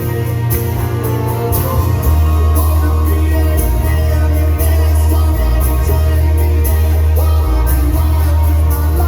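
Live rock band performing, with singing, cymbal hits and a heavy bass that gets louder about two seconds in.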